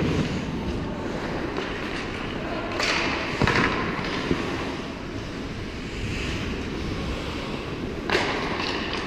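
Ice hockey skates gliding and scraping on the ice in front of the goal, over a steady low rumble. Sharper scraping stops come about three seconds in, one with a sharp knock, and again near the end.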